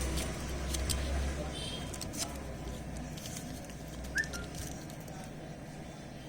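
Faint scattered clicks and taps of a mobile phone being handled and its parts fitted back together, with a brief faint high chirp about four seconds in.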